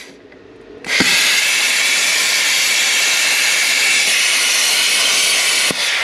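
Handheld plasma cutter cutting through sheet metal along a stencil. After about a second of quiet the arc starts with a click and hisses loudly and steadily for nearly five seconds, then stops with a click, leaving a softer air hiss.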